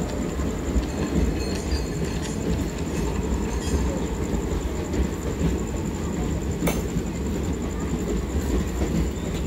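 Passenger train coaches rolling past along a station platform: a steady low rumble of wheels on the rails, with one sharp click about seven seconds in.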